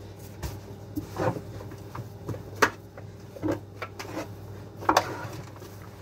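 Dough and white plastic dough tubs being handled at a weighing scale: scattered knocks and soft thuds, with two sharper knocks, one near the middle and one near the end, over a steady low machine hum.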